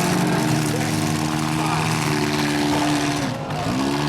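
Stock V8 demolition derby car engines running loudly together. About three and a half seconds in, one engine's pitch drops sharply, then revs back up.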